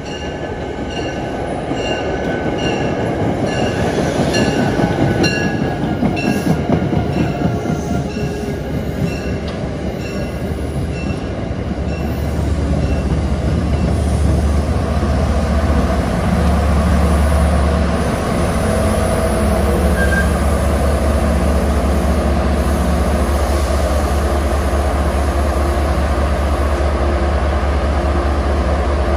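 MBTA commuter rail train pulling into a station, its coaches rolling past and slowing. A bell-like ring repeats about twice a second during the first several seconds. Then a steady low diesel-locomotive engine drone grows loud as the locomotive comes alongside.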